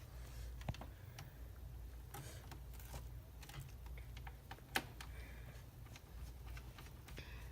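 Light, scattered clicks and taps of laptop parts being handled and fitted back together, with one sharper click a little before five seconds in, over a low steady hum.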